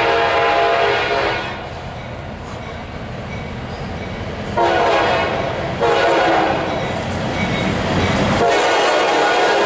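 Air horn of an approaching CSX freight locomotive sounding for a grade crossing. A blast ends about a second in, two more come around five and six seconds in, and a final long blast starts near the end. Under the horn is the low rumble of the train drawing closer.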